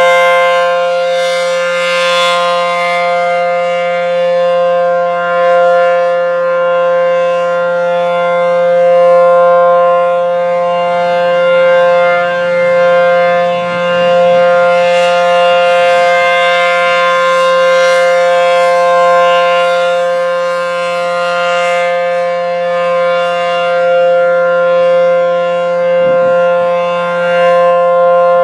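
ACA P-10 outdoor warning siren sounding a steady tone as a routine test. The pitch holds constant, with its loudness swelling and fading every few seconds.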